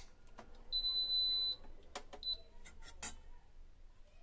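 Electric cooktop's touch-control panel beeping as its buttons are pressed: one long high beep about a second in, then a short beep a little after two seconds. A few light clicks and knocks are heard between the beeps.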